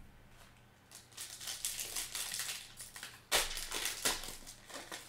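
Foil wrapper of a Panini Prizm basketball card pack crinkling as it is torn open by hand, with a sudden loud tear a little over three seconds in.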